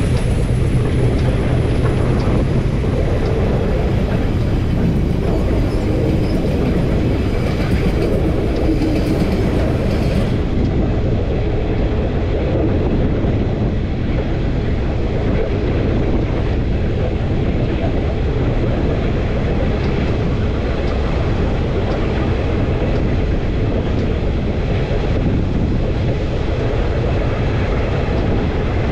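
KiwiRail diesel locomotives and rail cars rolling past close by, a steady loud rumble of engines and wheels on the track.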